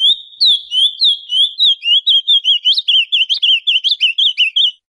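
Male ultramarine grosbeak (azulão) singing: a run of short, sliding chirped notes that come faster in the second half and cut off abruptly near the end.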